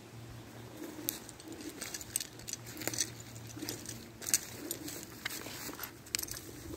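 Footsteps crunching through dry leaf litter and sticks, an irregular run of crackles and snaps, with a faint steady low hum underneath.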